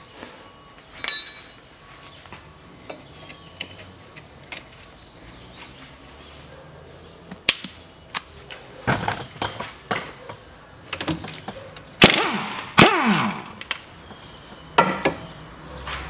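Metal clinks and knocks of a spanner on the upper nut of a front stabilizer link. About twelve seconds in come two short, loud bursts of an impact gun spinning the nut off, the second winding down in pitch.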